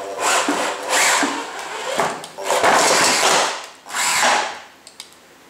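A combat robot's geared electric lifter motor whirs in about five short bursts, driving the flipper arms through gears and chain as it flips the robot over. There is a knock about two seconds in.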